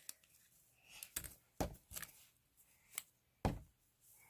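A handful of separate light taps and knocks, about five spread over a few seconds, the kind made by small objects being handled or set down.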